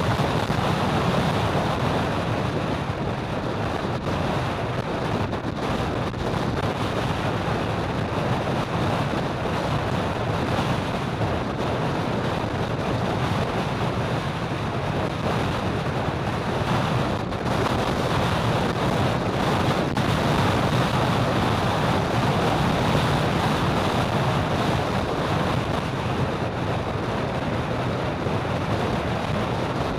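Steady wind rush on the microphone mixed with road and traffic noise, from a camera on a vehicle moving along a busy road.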